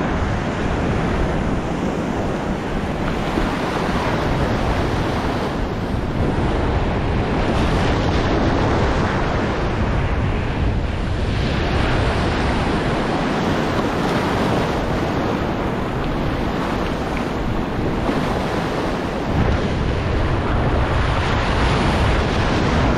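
Ocean surf breaking and washing through the shallows, with wind buffeting the microphone. The low rumble swells about 19 seconds in as whitewater washes in close.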